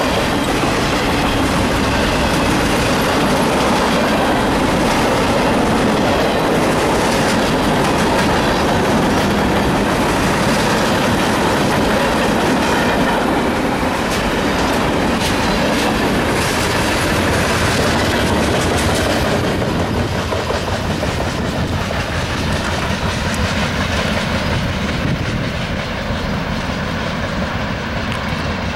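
Union Pacific freight train's cars rolling past: a steady heavy rumble with the wheels clattering over the rail joints. It grows a little quieter over the last several seconds as the tail of the train goes by.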